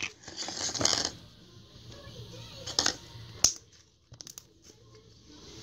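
Bubbly slime being squished in a clear plastic tub, a crackly handling noise in the first second, then two sharp plastic clicks less than a second apart about three seconds in as the tub is handled.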